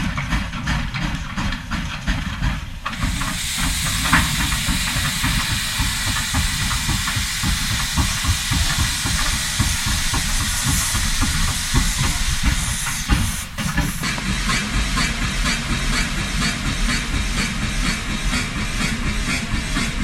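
Steam train running with a low rumble and a fast, even rhythmic beat. A loud burst of steam hissing starts about three seconds in and cuts off suddenly about two-thirds of the way through, after which the rhythmic running goes on.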